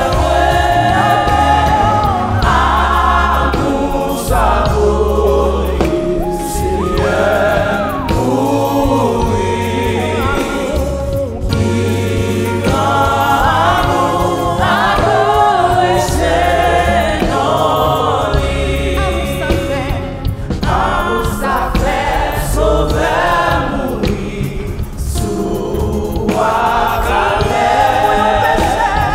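Live gospel praise song sung in Haitian Creole: a woman's lead voice with a choir, over keyboard with sustained low bass notes.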